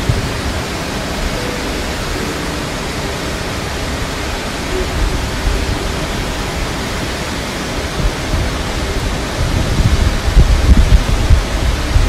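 Steady rush of Harajiri Falls, a broad 20 m waterfall running with low water. From about eight seconds in, wind gusts buffet the microphone.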